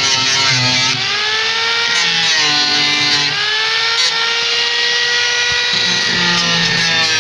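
Electric power tool, such as a sander or grinder, running with a continuous whine whose pitch slowly sags and rises as the load on it changes.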